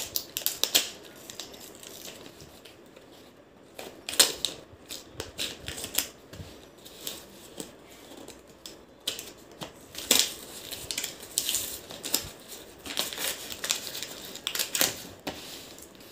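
Scissors snipping and cardboard-and-paper packaging crinkling and rustling as a shipping envelope is cut and pulled open, in irregular bursts of short sharp clicks.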